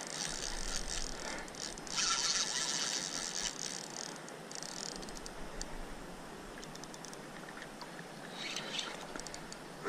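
Spinning reel's drag buzzing as a large catfish pulls line off. It surges loudest about two seconds in and fades, with scattered ticks and another short burst near the end.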